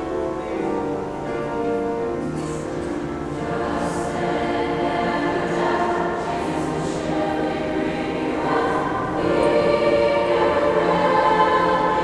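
Mixed high school choir of boys and girls singing a sustained passage, growing louder about nine seconds in.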